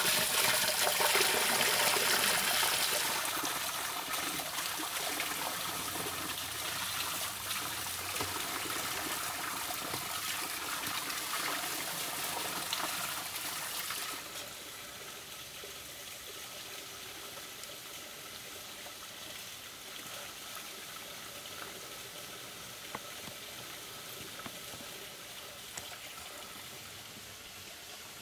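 Spring water running from a pipe spout and splashing onto a drain grate as a steady rush. It steps down in level about three seconds in and drops sharply about halfway through, leaving a fainter steady rush.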